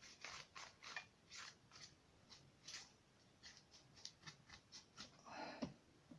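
Faint, irregular scratchy strokes, about two or three a second, of a paintbrush working over a painted paper model, lifting off excess ink wash.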